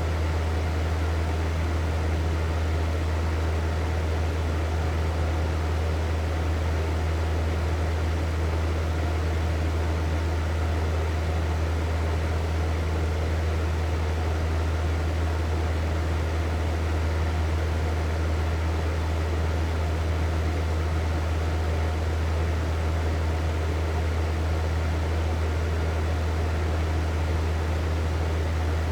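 Hair dryer running steadily: an even blowing noise over a strong low hum, with no change in speed.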